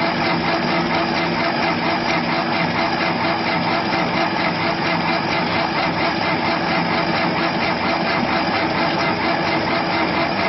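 Steady mechanical drone, like an engine idling, holding an even level throughout.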